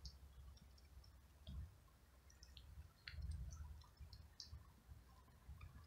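Near silence, with faint scattered small clicks and a low rumble that swells and fades.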